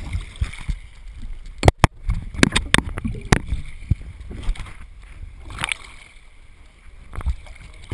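Choppy sea sloshing and slapping against a plastic sit-on-top kayak, with wind rumbling on the microphone. Several sharp knocks come in a cluster about two to three seconds in, with single ones near six and seven seconds.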